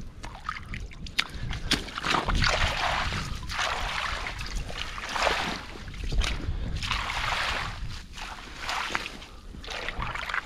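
A metal rake dragged through wet seaweed and a shallow rock pool: repeated wet swishes and sloshes every second or two, with a few sharp clicks about a second in.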